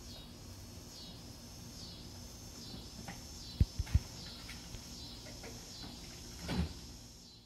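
Outdoor ambience with small birds chirping repeatedly in high, short calls. Two sharp low thumps come close together in the middle, and a brief whoosh comes near the end.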